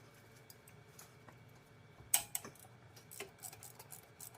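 Scattered metallic clicks and clinks of a hand wrench on the alternator's adjuster bolts, with a sharp clink about two seconds in and a run of small ticks near the end.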